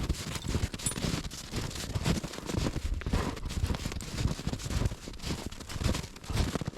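Footsteps crunching through deep snow, a few steps a second in an uneven rhythm.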